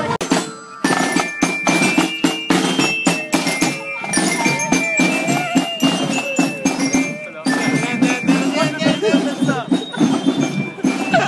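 Music led by drums and percussion, with rapid irregular hits and some held tones over it.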